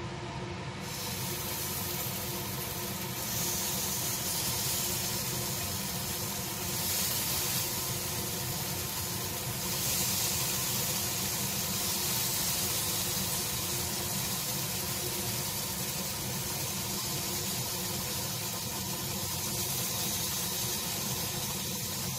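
Marinated pork slices sizzling on the hot slotted plate of a gas tabletop grill. The sizzle steps up in loudness several times as more pieces are laid on.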